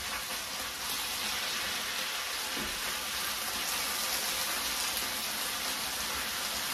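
Julienned potatoes sizzling steadily in hot oil in a large frying pan.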